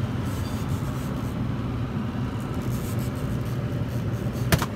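Boat motor running steadily while trolling, a low even hum. One sharp knock near the end.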